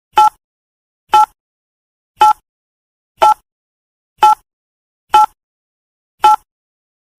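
Countdown timer sound effect ticking once a second: short, sharp clock-like ticks, each with a brief two-tone ring.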